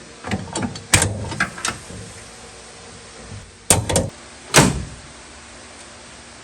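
Clicks and knocks from a Ford Mustang II trunk lock and latch being fitted and worked, then three louder sharp clunks between about three and a half and five seconds in.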